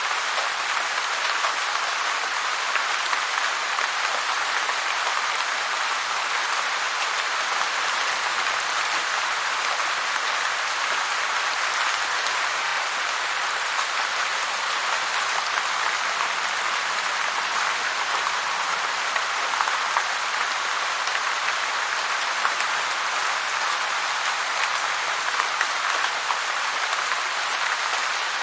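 Heavy rain falling steadily, a dense, even hiss of drops with no let-up.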